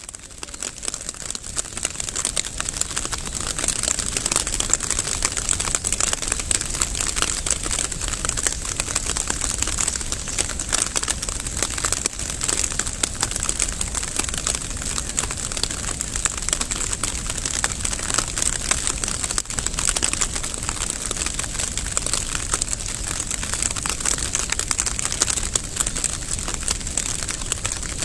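Steady rain falling, a dense patter of countless small drops, fading in over the first couple of seconds.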